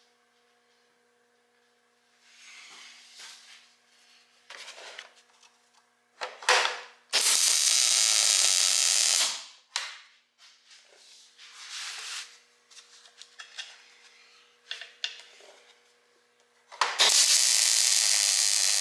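Two short tack welds, each a loud steady hiss of the welding arc lasting about two seconds. The first is about seven seconds in and the second near the end. Quieter knocks and rustles of handling fall between them.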